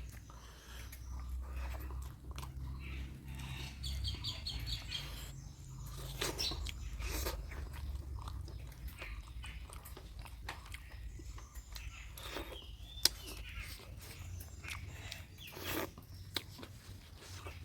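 Close-up eating sounds of a person chewing and biting into mutton curry: irregular wet mouth clicks and smacks, with one sharp loud click about two-thirds of the way through.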